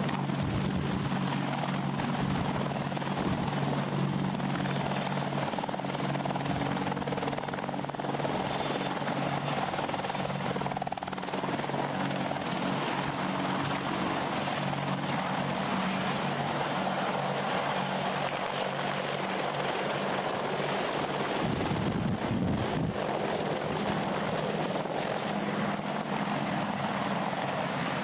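AH-64 Apache attack helicopter hovering low and lifting off close by. Its rotor and twin turboshaft engines make a steady, continuous noise.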